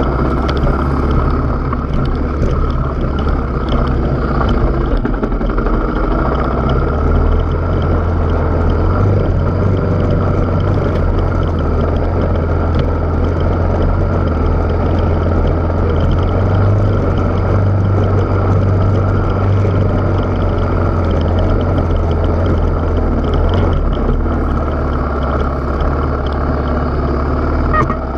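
Off-road trail motorcycle engine running steadily as it is ridden along a rough track, with a low drone that grows a little stronger about seven seconds in and eases back near the end.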